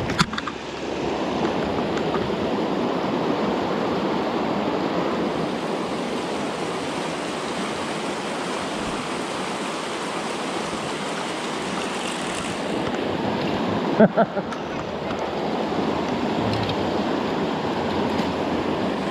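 Fast mountain creek rushing steadily over rocks in small rapids. Two or three sharp clicks about 14 seconds in.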